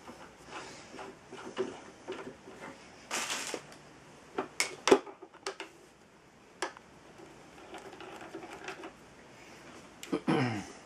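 Scattered metal clicks, taps and scrapes as parts of a benchtop drill press are handled and fitted by hand, with a sharp clack about five seconds in.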